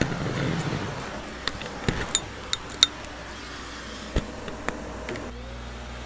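Shark vacuum cleaner running with a crevice tool along a carpet edge. Sharp clicks come from small debris being sucked up into the wand. About five seconds in, the sound changes to a steadier motor hum with a tone that rises and then holds.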